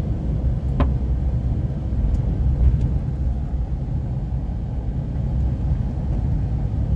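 Car driving, a steady low rumble of engine and road noise, with one brief tick about a second in.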